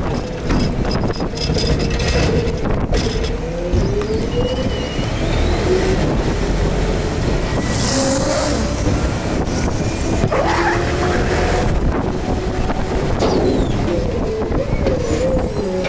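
Garbage truck's engine and hydraulic packer working a wet load in the hopper: a steady low rumble with a whine that wavers up and down in pitch, and scattered metal clicks, knocks and creaks.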